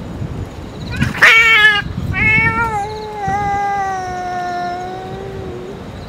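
Stray cat screeching loudly for under a second, about a second in, then a long drawn-out yowl that slowly falls in pitch and fades over about three and a half seconds: the defensive cry of a cat hit by a surprise attack from a dominant boss cat.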